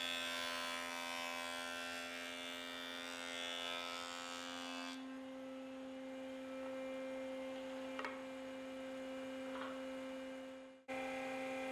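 Jointer running with a steady hum. For roughly the first half a short board is fed across the spinning cutterhead, adding a hiss of cutting. After that the machine runs on empty, and the sound drops out for a moment near the end.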